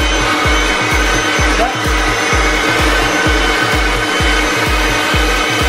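Leaf blower running steadily as it inflates a giant balloon, heard under background music with a fast, steady beat.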